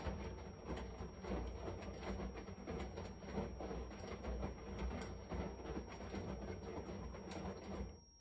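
Washing machine running with a steady low-pitched noise that cuts off suddenly near the end.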